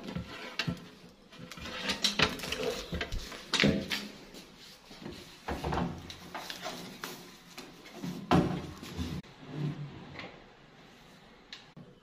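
A built-in microwave oven being pushed and slid into its kitchen cabinet niche: its metal casing scrapes and knocks against the cabinet in an irregular run of rubs and thumps. The run is loudest about two to four seconds in and again around eight seconds, then dies down near the end.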